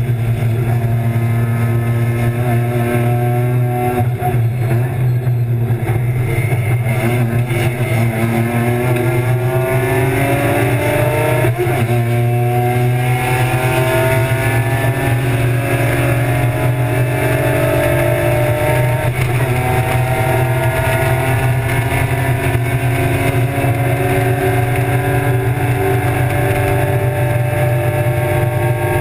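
BMW E36 325's M50 inline-six race engine heard from inside the cabin under hard driving. The engine note sinks about four to eight seconds in, then climbs steadily, with upshifts about 12 and 19 seconds in before a long pull in the next gear. A constant low drone runs underneath.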